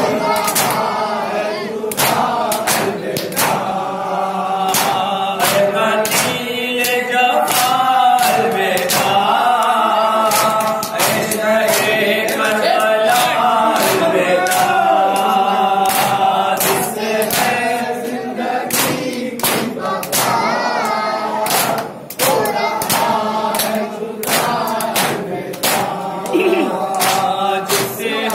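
Men reciting a noha, an Urdu mourning elegy, sung in unison by a group of male voices, over a steady beat of sharp hand slaps about twice a second, the chest-beating (matam) that accompanies the recitation.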